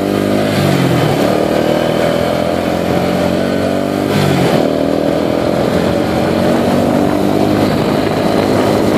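ATV engine running as the quad rides along a dirt back road, its pitch falling and rising with the throttle and dipping briefly about four seconds in.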